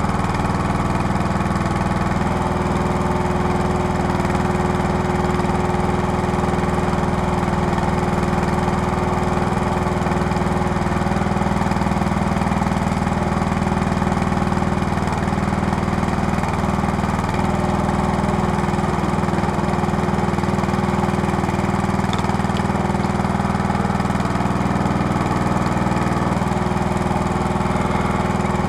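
Small petrol engine of a homemade hydraulic log splitter running steadily, driving the hydraulic pump. Its note shifts slightly about two seconds in and again near the end.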